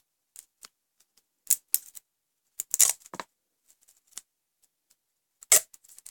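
Duct tape being pulled off a small roll in short, hard tugs, each giving a sharp ripping crackle. The loudest rips come about three seconds in and again near the end. The tape's adhesive grips the layers below so strongly that each length must be torn loose.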